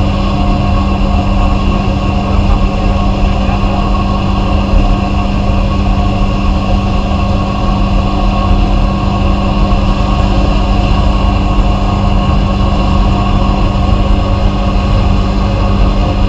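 Vapor-blasting equipment running steadily: a constant mechanical hum over a dense hiss, unchanging throughout.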